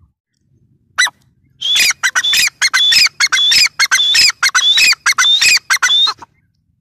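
Grey francolin calling: a single note about a second in, then a loud, fast run of about a dozen harsh, repeated call notes lasting some four and a half seconds.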